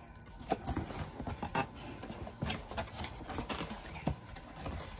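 Cardboard shipping box being opened and handled by hand: a string of irregular knocks and scrapes as the flaps are pulled open.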